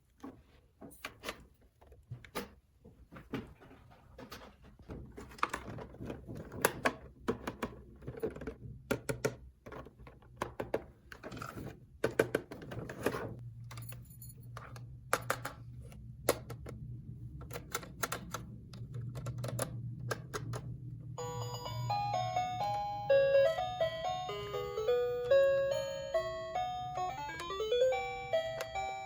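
Plastic dollhouse toy pieces clicking and tapping as they are handled, then about two-thirds of the way in an electronic chime melody starts playing, like a toy's built-in doorbell tune.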